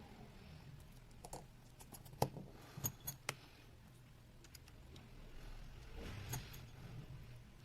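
Faint scattered clicks and light taps, the sharpest a little over two seconds in and a small cluster around three seconds, over a low steady hum.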